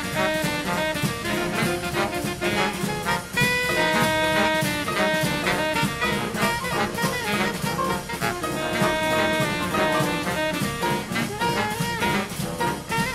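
Background jazz music: horns playing held notes over a drum kit keeping a steady beat.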